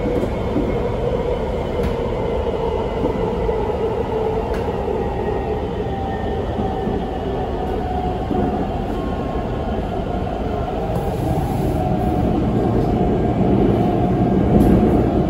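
Guangzhou Metro Line 22 train running at speed, heard inside the passenger car: a steady rumble of wheels and air with faint whining tones that drift slowly in pitch. It grows louder over the last few seconds.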